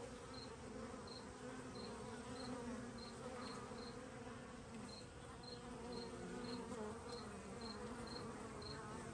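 Honey bees buzzing faintly around a hive entrance, a low, wavering hum, with a short high chirp repeating about twice a second.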